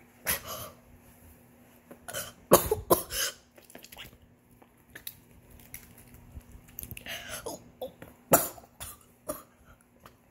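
A girl coughing and sputtering in a series of short, separate bursts. The loudest come about two and a half seconds in and again a little past eight seconds.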